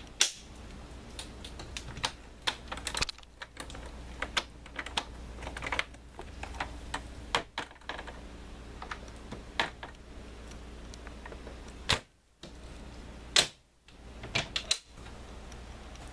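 Irregular sharp clicks and taps over a steady low hum, typical of handling noise from a handheld camera being moved around. The sound cuts out briefly twice near the end.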